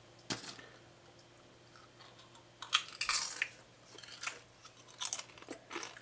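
Crisp microwave-dried potato chips crunching as they are bitten and chewed, in a few short bursts over the second half, after a single click about a third of a second in.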